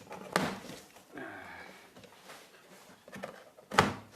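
PC-case packaging being handled while the box is opened: two sharp knocks, one about a third of a second in and a louder one near the end, with quieter rustling and handling between them.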